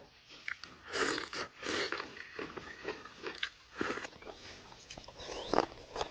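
A person eating at close range: biting and chewing food in irregular mouthfuls, with crunchy bites and a sharp click near the end.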